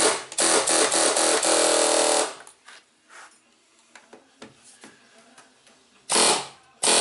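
Pneumatic air hammer rattling in bursts against a fuel pump lock ring, driving the ring around to lock it onto the tank: a brief burst at the start, a steady burst of about two seconds, then two short bursts near the end.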